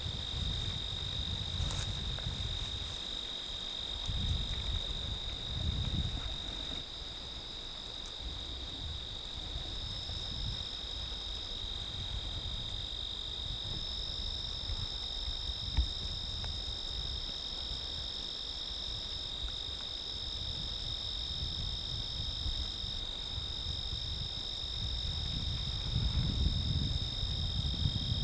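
Crickets singing in a steady chorus, two continuous high trills at slightly different pitches, over a low rumble that swells and fades now and then.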